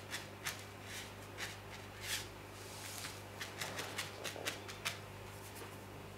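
Ink brush strokes on paper: about a dozen short scratchy swishes and dabs as the bristles are worked over the surface, coming quicker between about three and a half and five seconds in, over a steady low hum.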